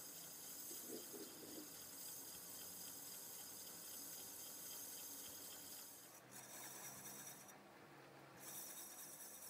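A faint, steady high-pitched hiss that cuts off suddenly about six seconds in, returns briefly, and starts again near the end.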